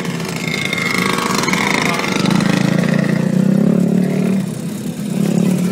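Several motocross bikes' engines running at low speed as the bikes ride slowly past, the engine note rising and falling with the throttle.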